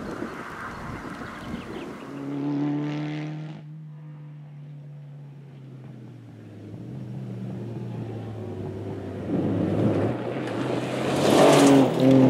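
Rally car engine at speed on a gravel stage, its pitch falling and rising as the driver works the throttle. It grows louder as the car approaches and is loudest as it passes close by near the end.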